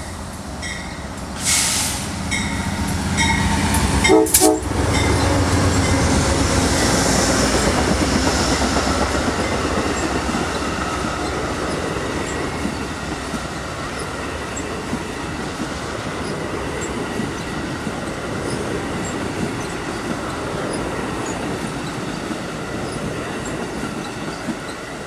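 Amtrak Superliner passenger train led by a P42DC Genesis locomotive passing close by at speed. A bell dings steadily for the first few seconds and a short horn blast sounds about four seconds in. Then comes the loud, steady rumble and rail clatter of the bilevel Superliner cars going by.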